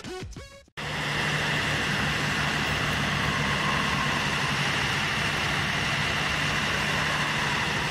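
A vehicle engine idling with a low, even hum. A piece of music cuts off just under a second in.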